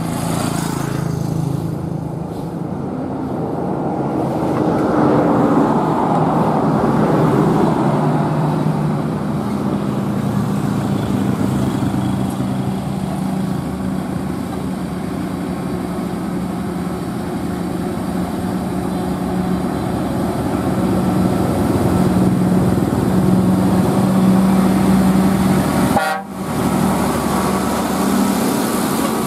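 Heavy trucks, a Mercedes-Benz Actros among them, driving past with engines running, while truck horns sound in long steady tones. The sound drops out briefly near the end.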